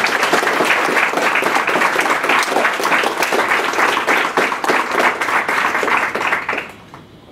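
Audience applauding: many people clapping at once, steady and then dying away near the end.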